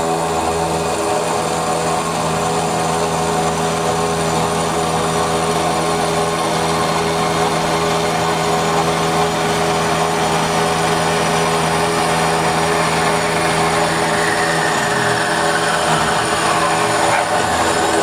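Small milling machine running steadily while its end mill cuts through the end of a 6 mm plate on the last pass, a steady motor-and-gear hum under the cutting noise.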